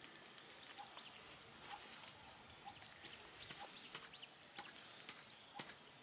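Near silence: a quiet outdoor background with faint, scattered short chirps and a few light clicks.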